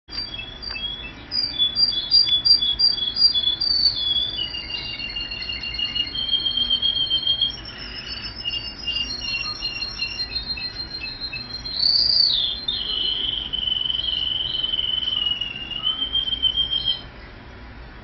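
Russian singing canary singing a long song of held rolling notes and trills that step between a few high pitches, with a quick rising-and-falling swoop about twelve seconds in; the song stops about a second before the end.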